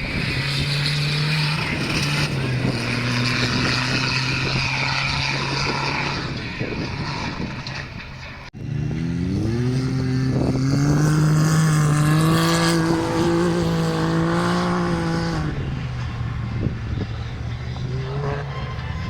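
Off-road 4x4 vehicle engines running under load on a course. After a sudden cut about halfway through, an engine revs up, holds at higher revs for several seconds, then drops back.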